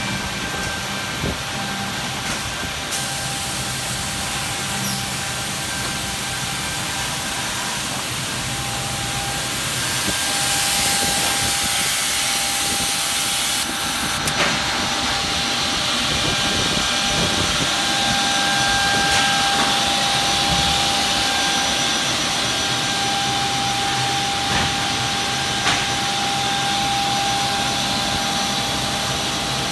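Brandt Ambition 1440 edgebander running: a steady machine drone with a constant whine and high hiss. The hiss swells for a few seconds about a third of the way in and then cuts off sharply, and there are a few sharp clicks.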